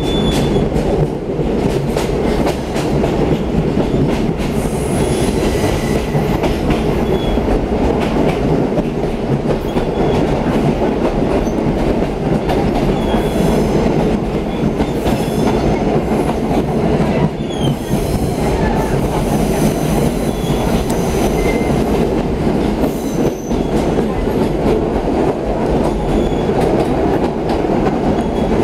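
Passenger train running, heard from inside the carriage: a steady low rumble of wheels on rail with clicks from rail joints and a few brief high squeals now and then.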